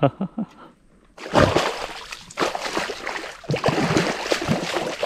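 Water splashing and sloshing in shallow water as hands plunge and thrash in it, starting about a second in with many quick, irregular splashes.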